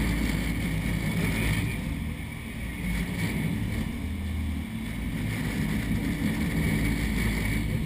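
Sportfishing boat's engines running steadily, a low rumble, with water rushing along the hull.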